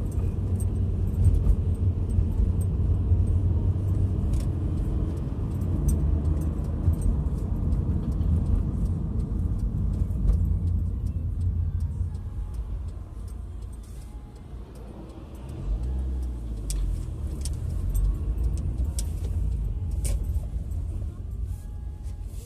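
Demolition machinery at work: a heavy, rumbling engine with scattered cracks and clinks of breaking debris. The rumble eases about halfway through and surges briefly a few seconds later.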